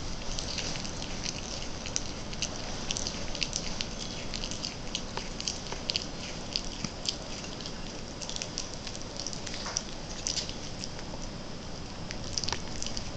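Baby two-toed sloths chewing shredded vegetables: a run of small, irregular wet clicks and crunches.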